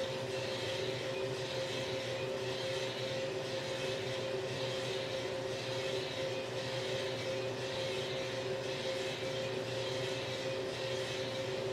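Small drum coffee roaster running: a steady motor and fan hum with two steady tones, and a higher swish that swells and fades about once a second as the drum turns.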